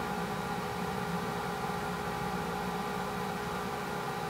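Steady hum with several held tones over a constant hiss, unchanging throughout.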